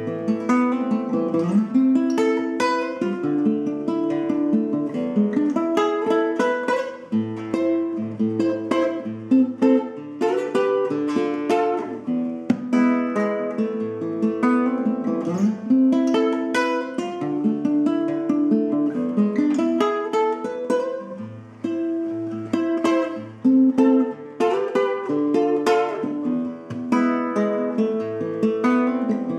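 Solo cutaway nylon-string classical guitar played fingerstyle: a plucked melody over low bass notes, with occasional sharp strummed chords, in a Latin blues in A minor.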